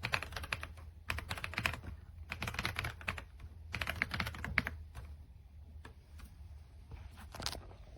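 Typing on an RK Royal Kludge R75 gasket-mounted mechanical keyboard: quick bursts of keystrokes with short pauses between them, thinning out to a few scattered strokes in the last few seconds.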